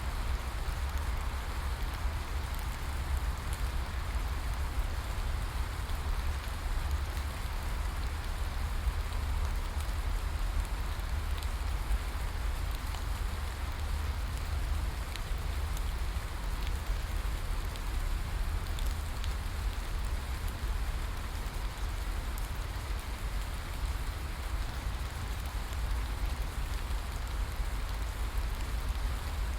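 Steady rain falling, an even hiss with scattered drop ticks over a constant low rumble.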